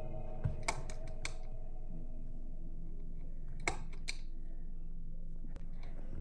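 A few light clicks and taps, as small plastic toy figures are handled and set down on a tabletop, over a low steady hum.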